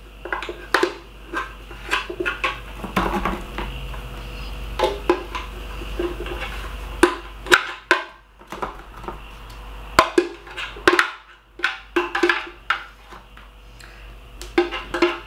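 A metal teaspoon scraping and tapping inside a blender jug, and on plastic containers, as thick, sticky fruit-and-coconut paste is scooped out: irregular clicks and knocks with short pauses between.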